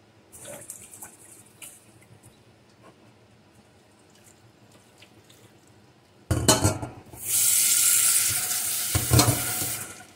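Rinsing white rice in a stainless-steel saucepan at a stainless-steel sink. Faint swishing of the rice in water comes first. About six seconds in, the rinse water splashes out into the sink with the pan knocking against the steel, and then the tap runs steadily, refilling the pan, until it stops near the end.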